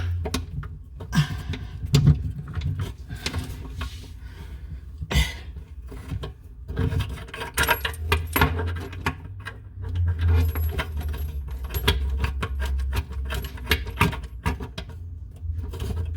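Irregular clinks, rattles and scrapes of metal plumbing fittings and parts being handled under a bathroom sink while the faucet's supply lines are twisted on.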